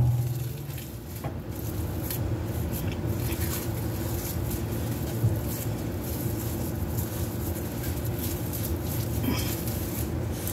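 Red silicone spatula stirring and folding thick refried beans and melting cheese in a pot: soft squishing and scraping over a steady low hum, with a small knock about five seconds in.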